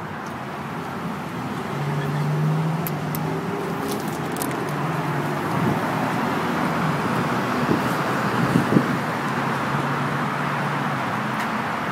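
Two electric linear actuators running steadily as they pull a truck's tonneau bed cover closed, a low motor hum over a steady whir that grows about one and a half seconds in.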